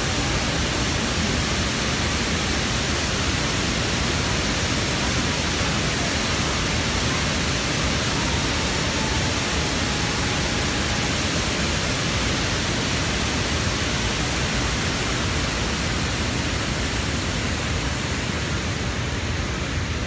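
Large man-made waterfall, a wide curtain of water pouring over a built wall: a steady, even rush of falling water.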